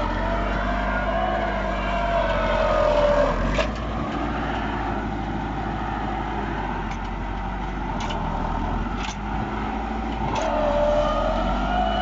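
Massey Ferguson 375 tractor's four-cylinder diesel engine running hard under heavy load, pulling a five-tine chisel plough deep through the soil. A high whine rises and falls slowly over the engine in the first few seconds and again near the end, and a few sharp clicks come in the middle.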